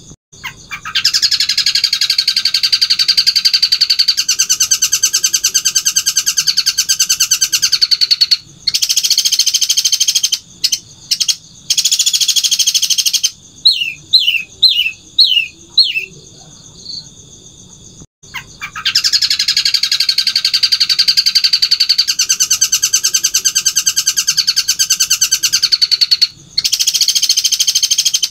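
A caged long-tailed shrike (cendet) singing in long, loud bursts of rapid rattling chatter, each several seconds long. Near the middle the chatter breaks into a short run of about six descending notes.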